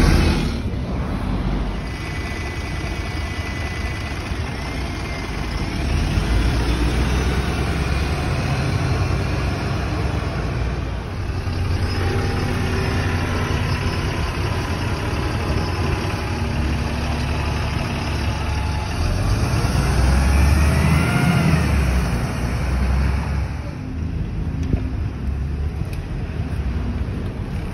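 Red London buses, single- and double-decker, driving past at close range with engine rumble and road noise, among other street traffic. The sound swells louder about three-quarters of the way in as a vehicle passes close.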